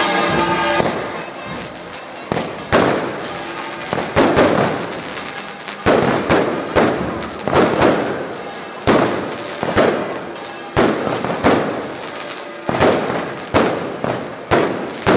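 Aerial fireworks going off in a rapid, irregular series of loud bangs, one to three a second, each followed by a short crackling echo.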